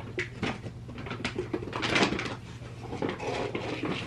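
Domestic cat meowing, the loudest call about two seconds in; a hungry cat asking for food.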